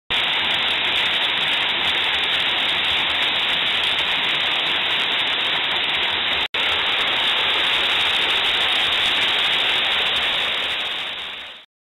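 Small mountain waterfall pouring over rock into a plunge pool: a steady rush of falling water. It breaks off for an instant about six and a half seconds in, then fades out near the end.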